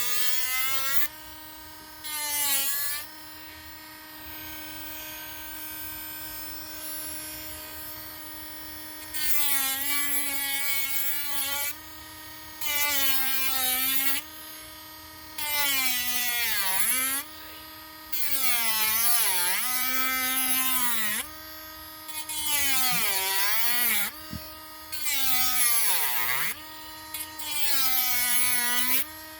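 Hand-held Dremel rotary tool running with a steady whine while its bit cuts into the wooden popper lure's mouth in repeated louder grinding passes of one to three seconds. The motor's pitch dips as the bit bites into the wood and comes back up between passes.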